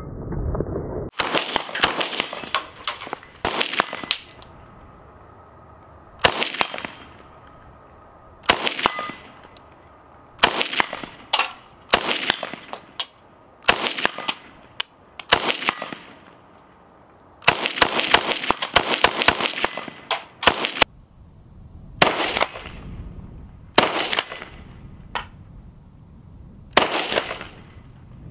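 Ruger Mini-14 semi-automatic rifle in .223 firing repeatedly, single shots mixed with quick strings of several rounds, and a steel plate target ringing with a clang from the hits.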